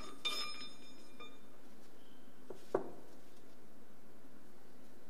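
Steel press tooling and bearing parts being handled at a workshop press: one ringing metallic clink shortly after the start, and a single knock about halfway through, over a steady hum.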